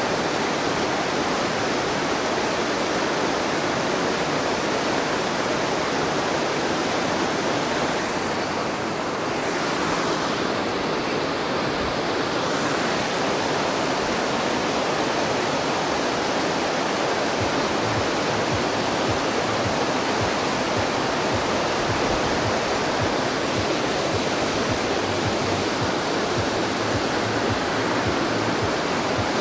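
Steady rushing of water pouring through a dam.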